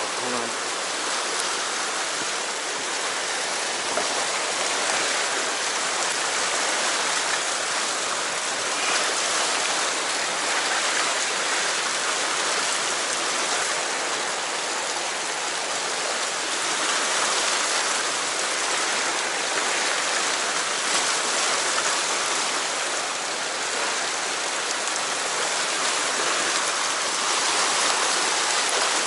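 Fast whitewater current rushing over rocks: a steady, unbroken rush of torrent water.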